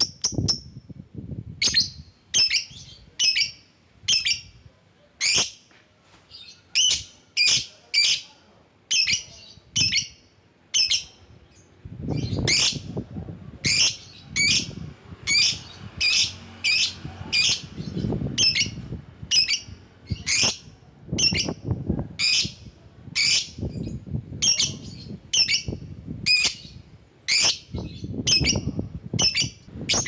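Lovebird giving sharp, shrill calls in a long steady series, about two a second.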